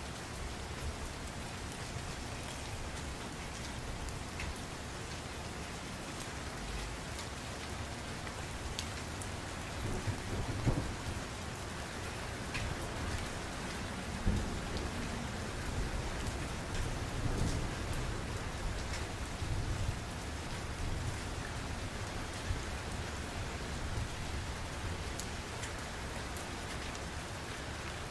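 Steady rain, with a few low rumbles about a third and halfway through.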